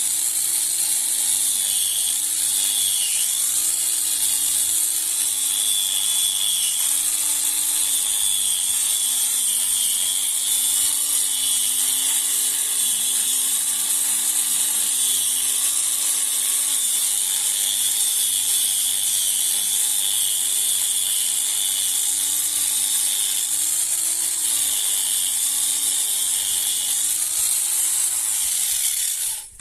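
Electric power tool running continuously, its motor pitch dipping and recovering as it is pressed into the work, over a strong high hiss of abrasion. It cuts off abruptly at the end.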